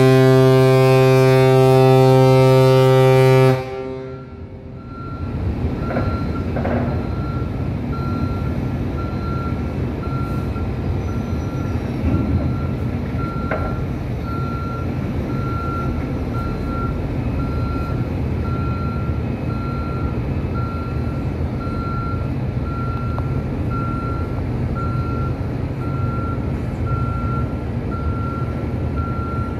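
A ship's horn sounds a loud, steady blast that cuts off about three and a half seconds in. Then a steady low engine rumble, with a vehicle's reversing beeper beeping at an even pace over it.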